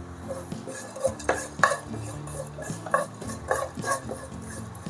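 A spoon stirring and scraping chironji and melon seeds as they roast in ghee in a frying pan, with irregular clinks against the pan.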